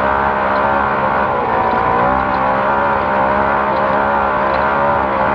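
Naturally aspirated side-by-side race car engine running hard at high, steady revs, heard from on board. The pitch dips briefly about a second and a half in and then climbs back up.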